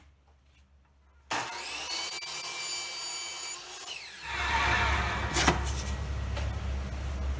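Miter saw starting up suddenly about a second in with a high whine and cutting a miter through wooden panel moulding; a louder, lower running noise takes over about four seconds in.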